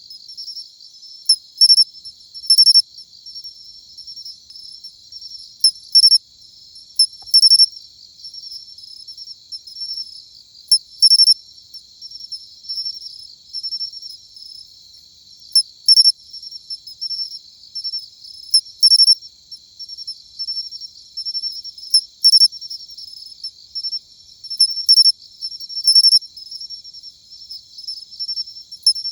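Matsumushi (pine cricket, Xenogryllus marmoratus) singing its 'chin-chiro-rin' song: loud, short, high chirps every few seconds, often two in quick succession. A steady, fainter, high insect trill runs underneath.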